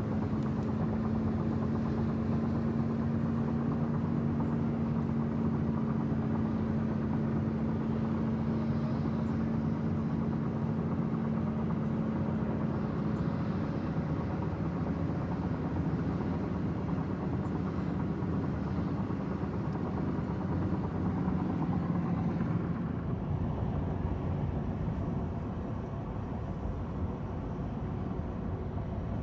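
Steady road and engine noise heard inside the cab of a truck driving on a highway, with a low, even drone that fades out about 22 seconds in. The whole sound eases slightly a few seconds later.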